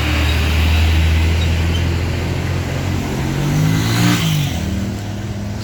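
Road traffic: a low, steady engine drone, then about three seconds in a vehicle engine revs up and down as it passes, with a brief rush of noise.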